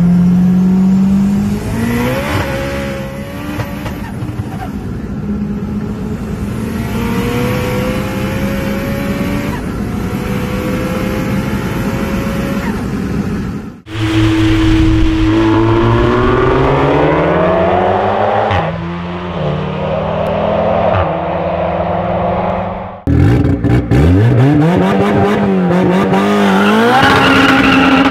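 Honda four-cylinder VTEC engines accelerating hard in three clips cut together. Each is a rising engine note broken by gear changes. The first is heard from inside a turbocharged car; the last is a Civic hatchback pulling away, its pitch climbing steeply.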